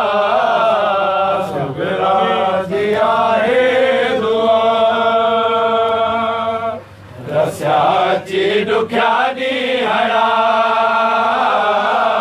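A mourning group chanting a Sindhi noha, with long held sung notes. The chant breaks off briefly about seven seconds in, with a few sharp hits around the break.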